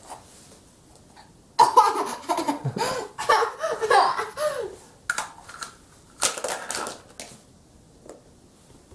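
Laughter for about three seconds, followed by a few short clicks and a brief rustle.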